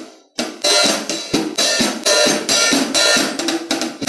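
Acoustic hi-hat struck with a drumstick about three times a second, ringing and rattling between strokes as the foot pedal opens and closes the two cymbals, changing the sound.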